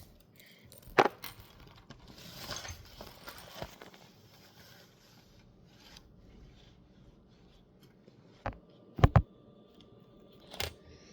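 Pencil and eraser scratching and rubbing on paper, most clearly from about two to four seconds in, with sharp taps: one about a second in and several near the end, two of them in quick succession.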